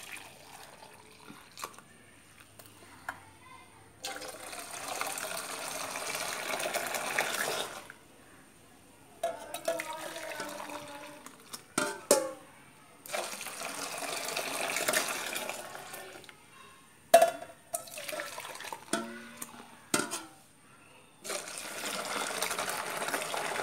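Hot milk tea poured in a long stream from a steel saucepan into a steel mug and back to froth it (pulled tea), three pours of a few seconds each. Sharp clinks of the steel vessels come between the pours.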